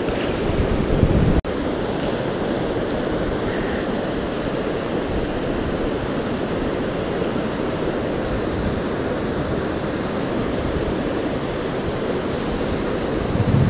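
Mountain creek running high and fast, at about 500 cfs, a steady rush of whitewater over rapids and boulders. There is a brief break in the sound about a second and a half in.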